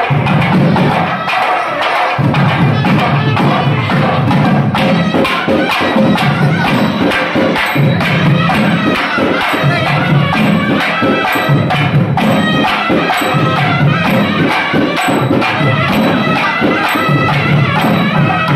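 Loud traditional procession music: drums beating a fast, steady rhythm with sharp metallic percussion on top, and crowd noise beneath.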